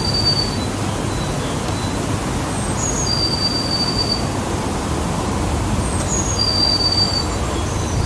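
A bird singing the same phrase three times over a steady low rumble of background noise: each phrase is a few short high notes followed by one long, thin, high whistle held for about a second.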